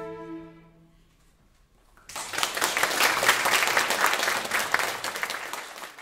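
A flute ensemble's last held chord dies away within the first second. After a short silence, audience applause breaks out about two seconds in and fades out at the end.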